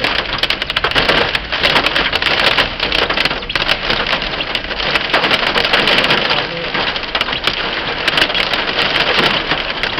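Heavy rain mixed with hail pelting a hard surface: a steady hiss thick with sharp clattering impacts.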